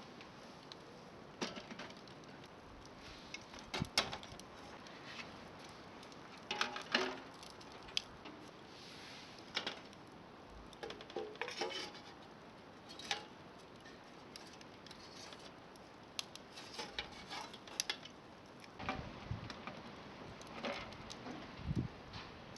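Cookware and utensils being handled during food preparation: scattered clicks, taps and clatter at irregular intervals over a faint steady background.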